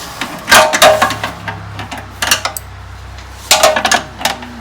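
Metal clanks and clinks of tools and the exhaust pipe being worked loose, a few sharp knocks spread out, the loudest near the start and about three and a half seconds in, over a low steady hum.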